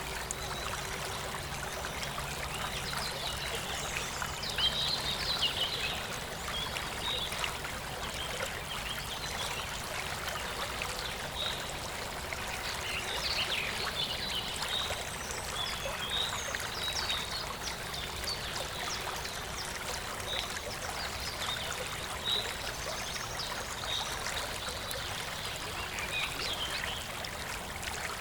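Birdsong: many short chirps repeating over a steady rushing background.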